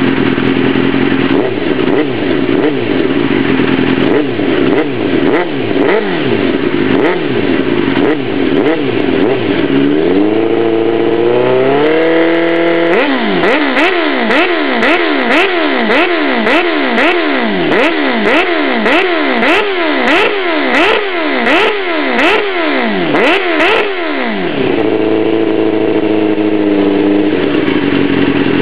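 Motorcycle engine heard through its exhaust, revved over and over in short throttle blips, each rise and fall in pitch about a second long. About ten seconds in it climbs and holds a higher rev for a couple of seconds, then goes back to quick blips, and near the end settles to steady, faster-than-idle running.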